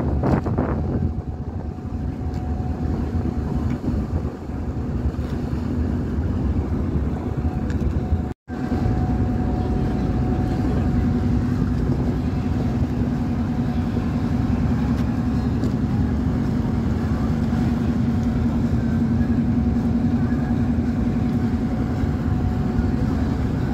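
Passenger ship passing close by: a steady low drone of its engines and propellers with a hum, over churning water along the hull. The sound drops out briefly about eight seconds in.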